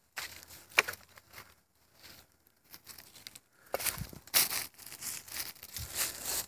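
Handling noise of a phone camera: hands and fabric rubbing and scraping over the microphone in irregular rustling bursts, with a couple of sharper scrapes. The sound cuts off abruptly at the end.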